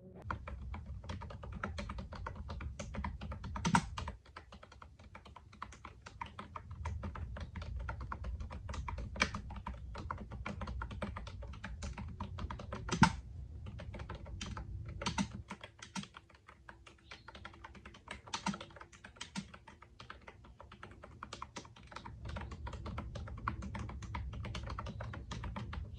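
Fast continuous typing on a GEEZER KYP100 wireless keyboard with round typewriter-style keycaps: a dense run of key clicks, with a few louder strikes, the loudest about halfway through.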